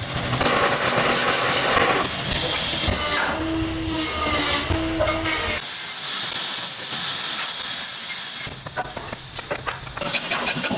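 Hissing machine noise in a hockey-stick factory. The hiss changes abruptly several times. A few short steady tones come in the middle, and a run of rapid clicks near the end.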